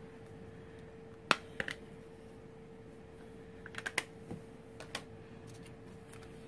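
Scattered light clicks and taps as small plastic stamping supplies are handled and set down, a few single clicks and then a quick cluster in the middle, over a faint steady hum.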